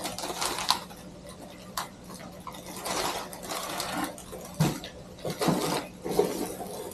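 Plastic wrapping crinkling and rustling in irregular bursts as wrapped items are handled and turned over, with a few sharp clicks.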